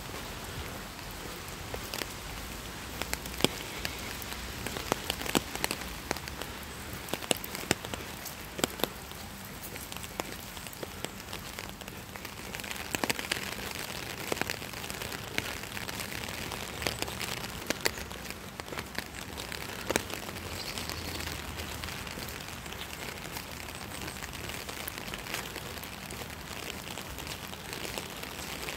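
Steady rain falling on wet paved ground, dotted with frequent sharp taps of nearby drops, a little heavier for several seconds around the middle.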